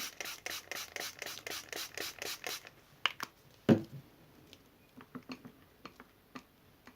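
A pump spray bottle of slime activator sprayed in quick repeated puffs, about five a second, for a little over two seconds. Then a few scattered light clicks and one louder knock.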